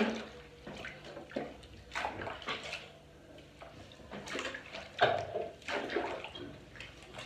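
Hands splashing soapy water in a small plastic baby bathtub while a baby is washed, in irregular splashes, the loudest about five seconds in.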